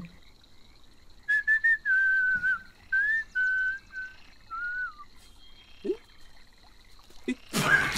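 A man whistling a short run of clear notes, about eight, the last one sliding down in pitch. It is the kind of whistle that Chinese grandparents use to prompt a small child to pee.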